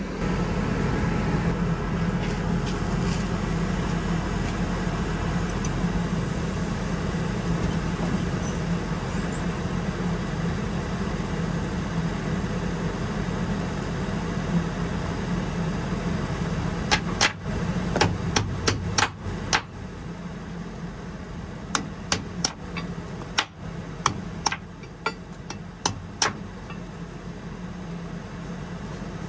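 Hammer knocking steel bolts out of a scraper's cutting edge: a run of sharp metal strikes in two groups starting about halfway through, over a steady engine drone.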